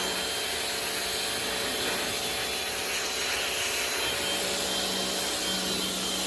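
Rock&Rocker HWY12 high-pressure washer running steadily, its motor hum under the hiss of the water jet spraying.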